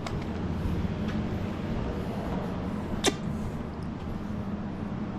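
A low steady rumble with a few faint knocks, and one sharp knock about three seconds in.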